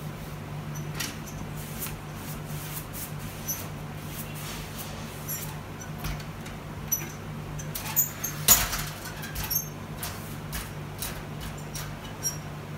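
Handling noises from hanging wallpaper: scattered light clicks and squeaks as the paper is smoothed onto the wall and an aluminium stepladder is climbed down, with one louder knock about eight and a half seconds in. A steady low hum runs underneath.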